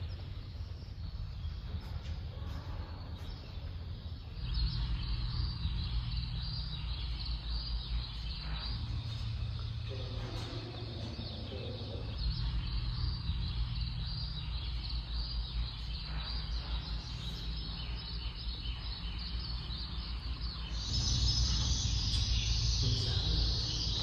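Outdoor ambience: a low, uneven rumble of wind on the microphone with faint birds chirping in the background, growing a little louder near the end.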